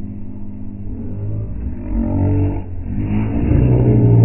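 Can-Am Maverick X3 side-by-side's three-cylinder engine revving, rising in pitch and getting louder from about halfway through, as it is driven with a front wheel sheared off and the bare hub ploughing through mud.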